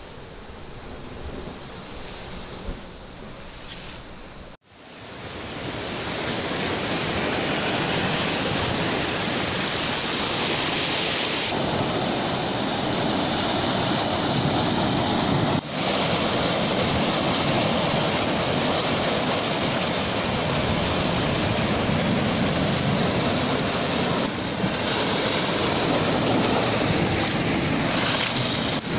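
Sea surf breaking and washing over rocks, a steady rushing roar with wind buffeting the microphone. It is quieter for the first few seconds, then cuts off sharply and comes back louder.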